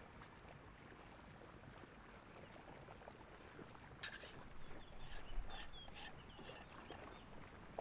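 Faint crinkling and small clicks of hands working at a small wrapped item, mostly in the second half, over a quiet steady outdoor background.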